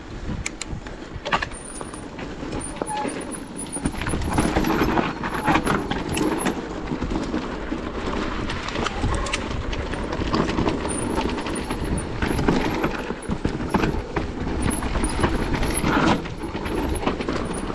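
Santa Cruz Heckler electric mountain bike riding over a rough dirt trail: a steady rush of tyre and wind noise with frequent rattles and knocks from the bike, getting louder about four seconds in.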